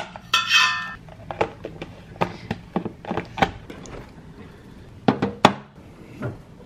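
Air-fried potato wedges scraping and sliding out of the air fryer basket into a plastic storage container, followed by a string of light clicks and knocks as the plastic box and its lid are handled and the fridge door is opened.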